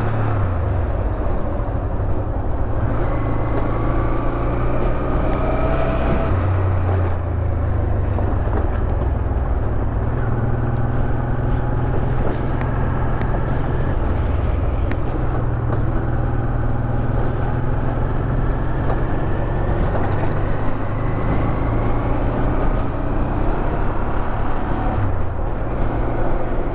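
Honda Transalp motorcycle engine running at road speed under wind noise, its pitch rising and falling with the throttle.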